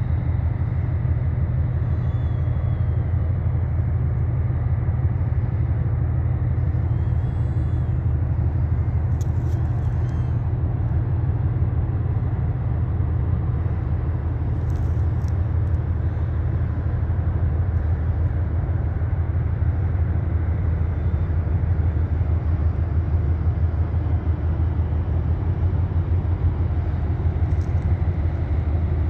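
Low, steady drone of a ship's engine, even throughout, with faint bird chirps and a few brief clicks over it.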